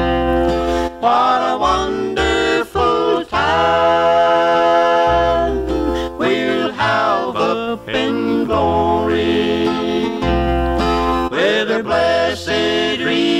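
Country gospel music with guitar accompaniment, a passage of a song about a reunion in heaven with no clear sung words.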